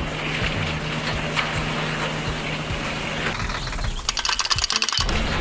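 Cartoon tractor engine sound effect running steadily with a low hum. About four seconds in, a second of rapid clicking with a high ringing tone cuts in over it.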